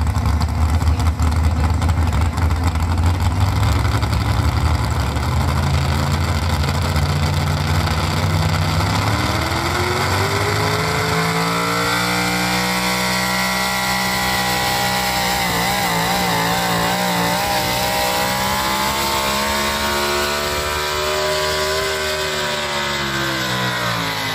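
A pulling tractor's engine making a run: its note climbs over the first ten seconds or so, holds high with a wavering pitch, then drops away near the end.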